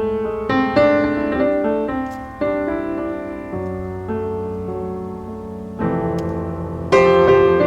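Background piano music, slow notes and chords that ring and fade, with a fresh chord struck about seven seconds in.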